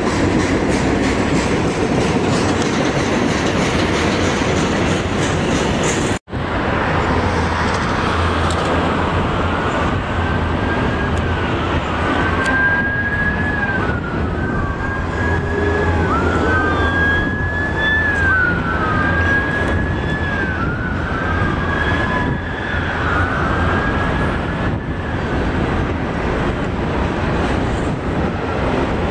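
Canadien National double-stack container train rolling past with a steady rumble of wheels and cars; the sound cuts out for an instant about six seconds in. From about nine seconds a siren wails up and down, about one rise and fall every second and a half, for some fifteen seconds.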